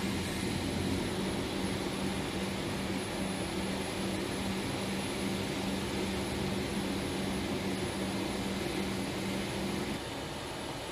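Steady turbine drone with a faint high whine, heard inside the cockpit of a U.S. Air Force MC-130J Commando II on the ground; it drops somewhat in level about ten seconds in.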